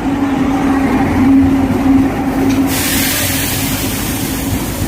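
Passenger train running, a steady drone that fades after about three seconds as a rushing hiss comes in.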